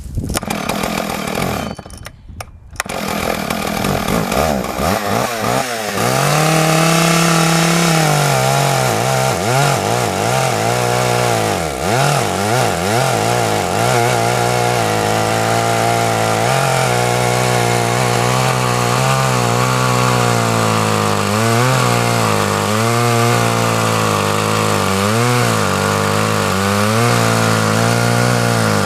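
Husqvarna 2101XP 99cc two-stroke chainsaw running at full throttle, cutting a log. It comes up to full speed a few seconds in and holds there, the engine pitch dipping and recovering as the chain loads in the wood.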